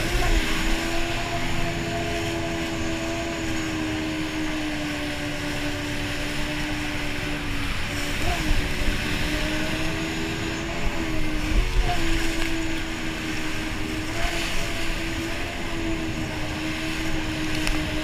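Yamaha jet ski running at high speed, a steady engine drone that dips briefly about 8 and 12 seconds in as the rider eases off in turns. Over it is rushing wind and water spray against the craft.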